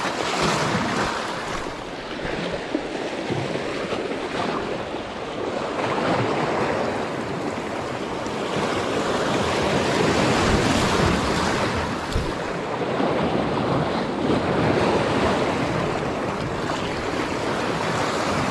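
Sea waves washing onto the shore, a steady rushing noise that swells and eases every few seconds.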